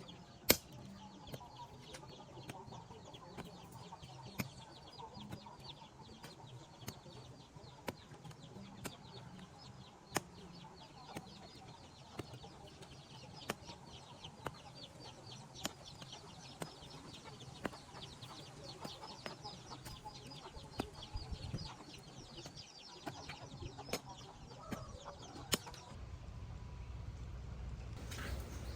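Chickens clucking, with scattered sharp clicks and knocks.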